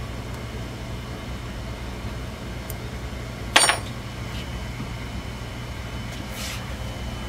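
A single sharp metallic clink with a brief ring about three and a half seconds in, as a small metal tool knocks against the steel of a bench mill's slide. A steady low hum runs underneath.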